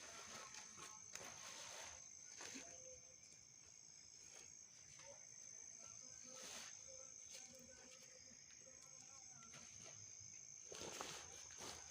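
Faint, steady high-pitched insect trill with a few soft rustles.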